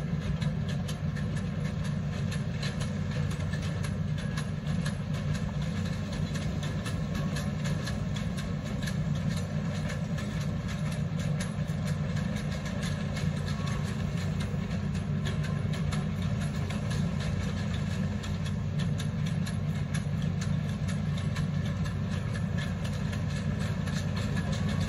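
Hitachi ZX210F amphibious excavator's diesel engine running steadily as the machine moves through the water on its pontoons, with a fast clatter over the low drone.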